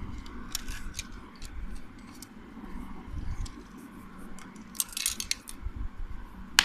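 Sharp clicks and small snaps of a Huawei Bluetooth device's plastic casing being pried open with a knife-like blade, with a quick burst of clicks about five seconds in.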